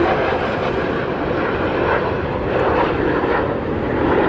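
Alpha Jet trainers of a jet formation team, their engines making a loud, steady noise as they fly.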